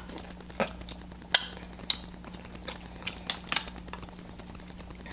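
Mussel shells clicking against each other and the plate as cooked mussels are picked apart and eaten by hand: a string of about seven sharp clicks, the loudest about a second and a half in.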